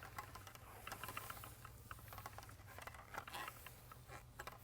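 Faint, irregular crackling ticks of a paint roller spreading wet water-based polyurethane topcoat over a concrete floor.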